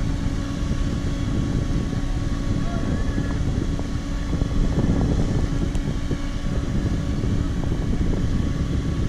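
Wind buffeting the microphone of a parasailer's camera as he is towed through the air: a steady, loud rush with a faint steady hum beneath it.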